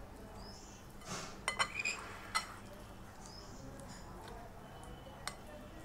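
Metal spoon clinking and scraping against a bowl while mashing a wet wood-apple (kodbel) mixture: a quick cluster of clinks about a second and a half in, and one more near the end.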